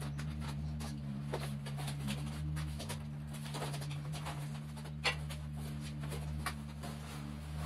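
Tape on a flat cardboard box being slit with a knife and the cardboard flap handled and lifted, giving scattered scrapes and crackles with a sharp crack about five seconds in. A steady low hum runs underneath.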